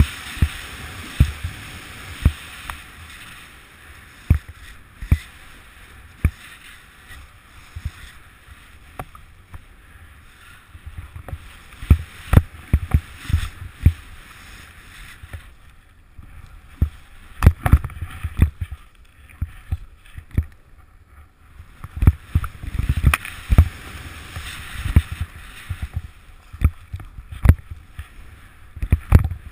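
Snowboard riding through deep powder snow: a steady sliding hiss with frequent sharp thumps and knocks as the board rides over bumps, easing off for a few seconds just past the middle.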